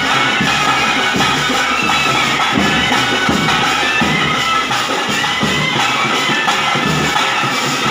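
Traditional ritual band playing: large barrel drums beaten in a steady rhythm, with a reedy wind instrument holding a sustained melody on top.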